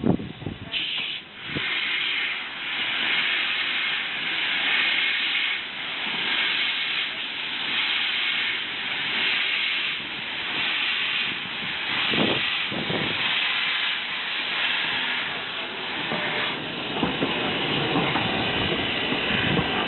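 A1 Peppercorn Pacific steam locomotive 60163 Tornado standing with steam hissing steadily, swelling slightly about once a second. Two short lower rushes come about twelve seconds in.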